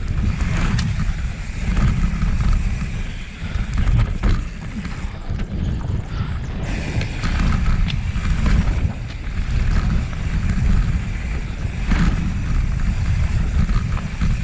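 Wind buffeting the microphone as a mountain bike rolls fast down a dirt flow trail, making a steady low rumble broken by short knocks and rattles of the bike over the ground.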